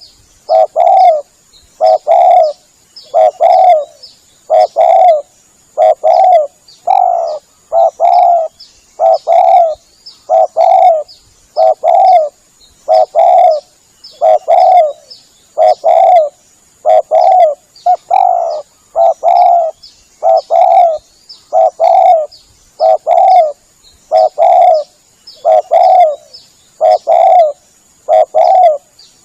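Spotted dove (tekukur) cooing over and over, about one coo phrase a second: a dove call played as a lure to draw in doves.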